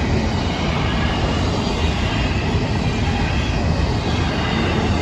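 Florida East Coast Railway intermodal freight train's double-stack container cars rolling past at steady speed, their wheels rumbling on the rails.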